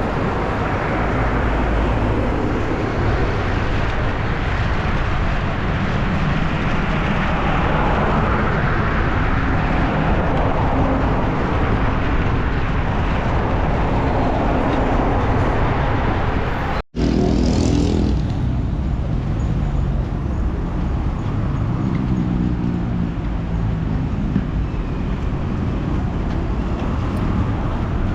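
Steady road-traffic noise with vehicles running, cut by a brief dropout about two-thirds of the way through.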